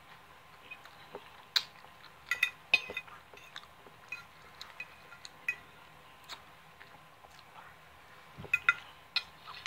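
Metal fork clinking and scraping against a dinner plate while scooping up noodles. Scattered sharp clinks, some briefly ringing, come in a cluster about two to three seconds in and again near the end.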